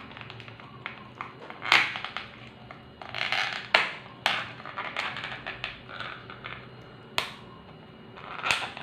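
Small plastic takeaway tub of kimchi being handled and its lid pried open: several sharp plastic clicks, about two, four and seven seconds in, with crinkling and scraping of the plastic between them.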